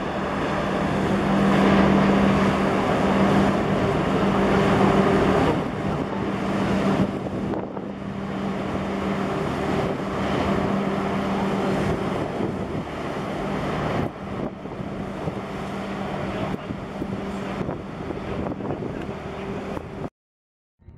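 The 400-metre container ship MOL Truth passing close by under way: a steady low engine hum over a rush of wind on the microphone. It is loudest over the first five seconds, eases as the stern moves off, and cuts off abruptly near the end.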